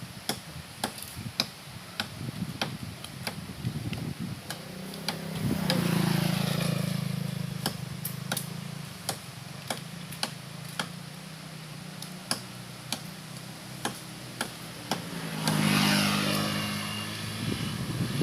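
Motor vehicles passing by twice, each rising and then falling away, with a regular ticking a little under two times a second beneath.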